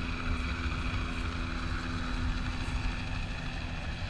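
Steady low engine rumble, with a faint hum that fades out about halfway through.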